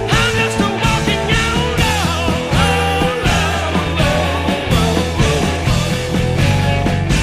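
Rock music with a steady beat playing as a soundtrack.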